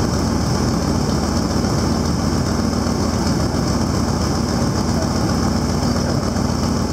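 Ford Super Duty pickup's gasoline engine idling steadily with the hood open, running on newly fitted coils and spark plugs.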